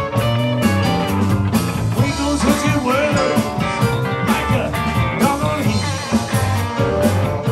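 Live blues-rock band playing loudly: electric guitars and a drum kit keeping a steady beat, with a male singer's voice over them through a handheld microphone.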